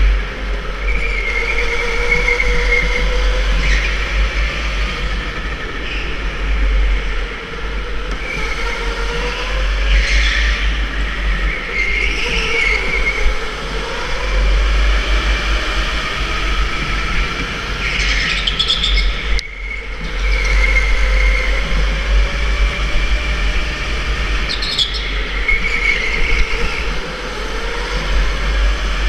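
Electric indoor rental go-kart running at speed. Its motor whine rises and falls as it accelerates and slows through the corners, over tyre and track noise. Wind buffets the onboard camera's microphone.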